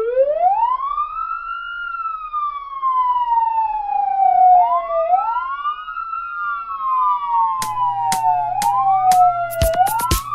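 Ambulance siren wailing: each wail rises quickly, then falls slowly, with several wails overlapping. About three-quarters of the way through, a steady low note and a quickening beat of sharp hits come in.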